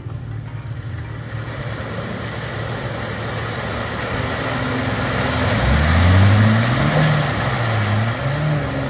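Jeep Wrangler engine revving hard as it ploughs through deep mud, in two surges, the louder one about six seconds in. A rush of spinning tyres and sloshing mud builds under it.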